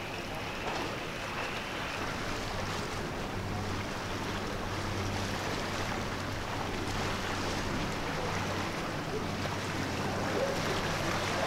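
Wind and sea wash, with the low steady drone of a boat's engine growing a little stronger a few seconds in.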